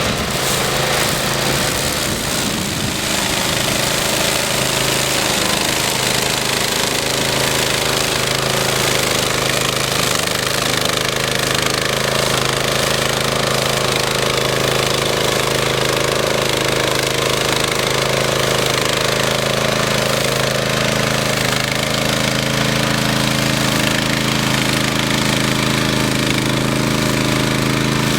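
The 9-horsepower Honda engine of a Power Dog walk-behind brush mower running steadily at a constant speed.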